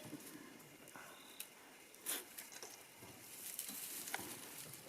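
Faint patter and soft rustles of African wild dogs (painted wolves) moving about close beside the vehicle, with a short swish about two seconds in and another near four seconds.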